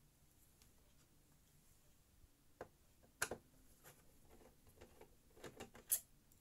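Faint, scattered clicks and light taps of a screwdriver and small screws being handled during disassembly of a computer. The sharpest clicks come about three seconds in and near the end.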